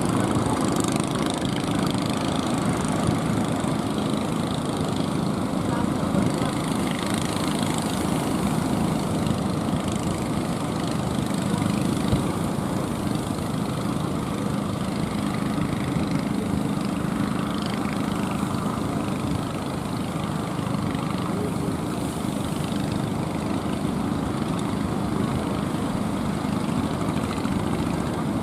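Motor of a fishing boat running steadily, an even engine hum mixed with broad noise.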